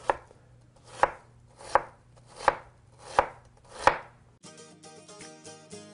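Chef's knife chopping through a red onion onto a cutting board: six even knocks about 0.7 s apart. Background music comes in about two thirds of the way through.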